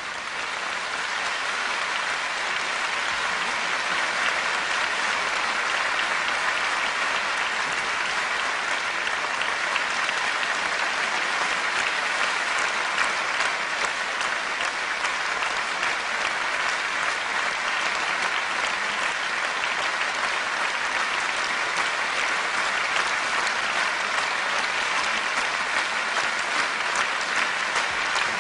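A large concert audience applauding, swelling over the first few seconds as the song ends, then holding steady and even.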